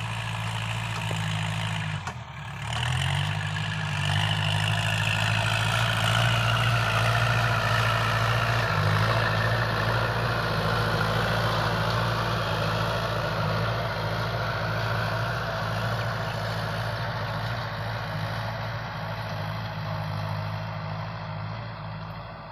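Kubota L5018 tractor's diesel engine running steadily under load while pulling a rotary tiller through dry soil. The engine note briefly dips and recovers about two seconds in, grows louder as the tractor passes close, and fades as it moves away.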